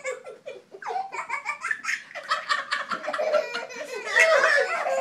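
Young child laughing in quick repeated bursts while being tickled, with adults laughing along; the laughter swells loudest about four seconds in.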